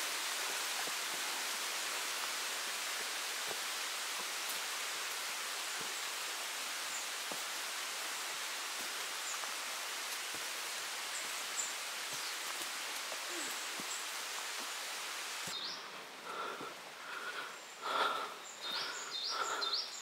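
Steady hiss of rain in the forest, with scattered drop ticks. About fifteen seconds in it cuts off to a quieter forest, where short animal calls repeat in quick succession.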